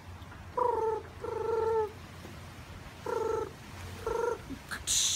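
A person humming four short, buzzy notes in two pairs, the second note of the first pair held longer and falling slightly at its end. A brief high hiss follows near the end.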